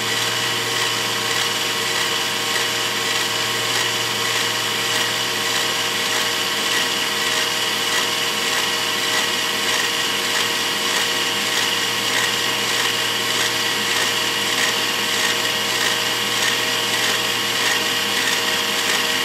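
Battery drill running steadily and slowly, its bit cutting a pilot hole through an oiled steel chainsaw guide bar and throwing off curls of metal swarf.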